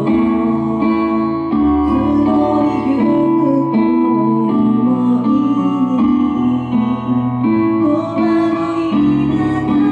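A woman singing live into a handheld microphone over an instrumental accompaniment that includes guitar.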